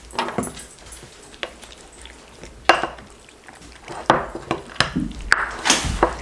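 A utensil knocking and clinking against a bowl at irregular intervals while sliced beef is coated in barbecue sauce, with a few louder knocks near the end.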